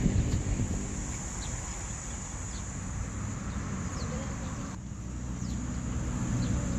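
Tropical forest ambience: a steady high-pitched insect drone, with short, falling bird chirps about once a second over a low rumble of wind.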